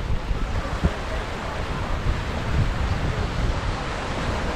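Wind buffeting the microphone in an irregular low rumble, over the steady wash of sea waves.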